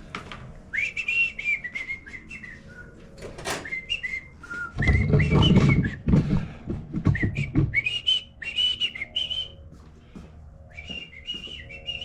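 A person whistling a tune in short phrases. About five seconds in there is a loud stretch of clattering and knocking.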